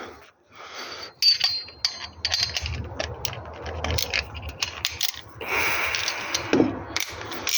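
Metal hand tools clinking and scraping: a socket wrench with an extension being fitted and worked on a 14 mm bolt under a car. There are sharp clicks throughout, a short metallic ring a little over a second in, and a stretch of scraping near the end.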